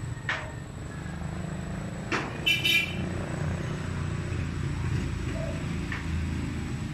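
A motor vehicle engine running steadily with a low rumble, with a few sharp knocks and a short high-pitched toot about two and a half seconds in.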